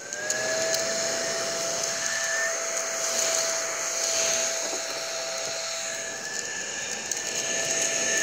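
Larva mini vacuum cleaner switched on, its small motor spinning up within a fraction of a second to a steady whine over a rushing hiss of air.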